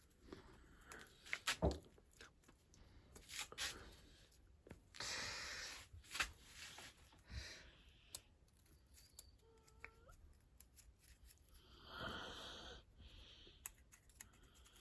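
Scattered clicks and knocks with a couple of longer rustling, scraping stretches, about five and twelve seconds in.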